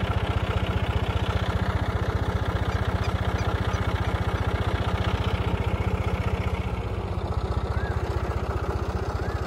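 John Deere tractor's diesel engine idling steadily, its low note shifting slightly about seven seconds in.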